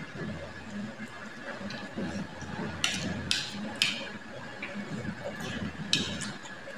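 Children eating noodles with a spoon and a fork: a few short scrapes and clicks of cutlery against the plates, over a faint steady high hum.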